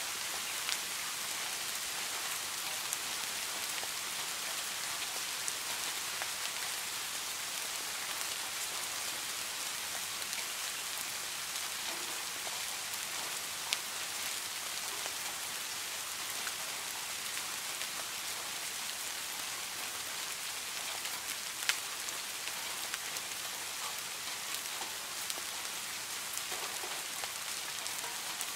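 Steady rain falling on a garden fish pond: an even, high hiss of drops on water, sprinkled with sharper single drips and a few louder single drops.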